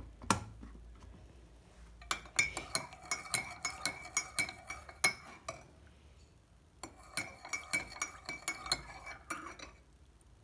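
A metal spoon stirring a hot drink in a cup, clinking quickly and evenly against the sides so the cup rings. There are two bouts of stirring with a short pause between them.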